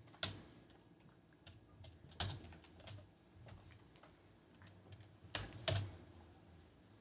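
Scattered keystrokes and clicks on a computer keyboard and mouse. The sharpest come about a quarter second in, around two seconds in, and as a pair near five and a half seconds, over a faint low hum.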